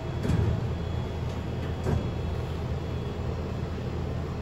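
Vendo V-Max 721 vending machine running with a steady low mechanical hum, with a light knock near the start and another about two seconds in.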